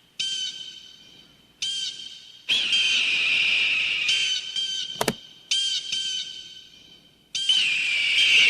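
Eagle calls: runs of short, high, piping calls and two longer drawn-out screeching calls, one sequence that repeats about every five seconds. A sharp click comes about five seconds in.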